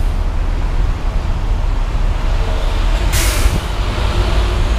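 City street traffic passing close by with a steady low rumble, and a truck's air brakes hissing briefly about three seconds in.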